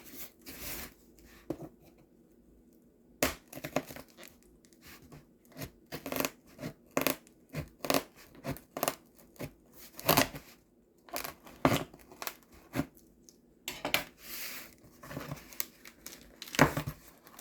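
A package being opened by hand: packaging tearing and crinkling, in many short, sharp rustles and clicks, with a brief quiet pause about a second in.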